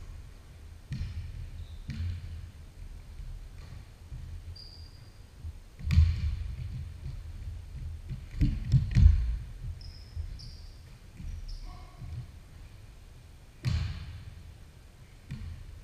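A basketball bouncing on a hardwood gym floor: irregular dull thumps, the loudest about six and about nine seconds in. A few short high squeaks come in between.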